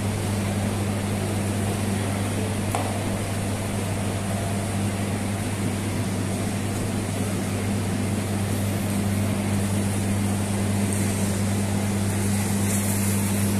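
Steady low machine hum with a hiss over it, unchanging throughout, with one faint click about three seconds in.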